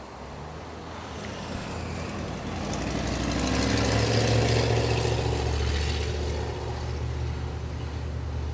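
A motor vehicle's engine growing louder from about three seconds in, with a hiss of tyres or wind swelling to its loudest around four to five seconds and then easing while the low engine hum carries on.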